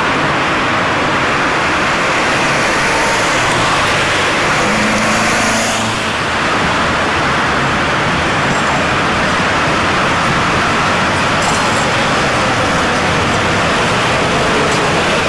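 Steady street-traffic noise as a 1950s former Vestische articulated tram runs by on street track, with a faint whine from the tram near the end as it passes close.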